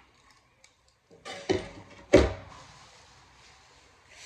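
A short scrape about a second and a half in, then one sharp knock with a brief ring: an object being handled and set down hard.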